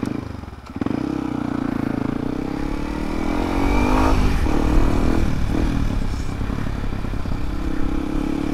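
Yamaha WR155R's single-cylinder engine picking up sharply about a second in, its pitch rising and falling through the middle, then running steadily under light throttle.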